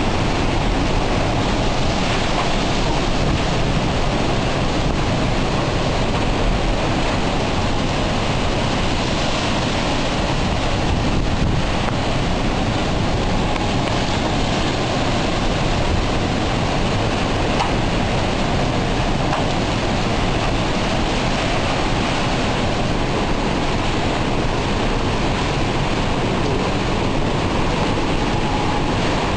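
Hurricane-force wind with driving rain, a loud steady rushing noise that keeps on without a break, with wind buffeting the microphone.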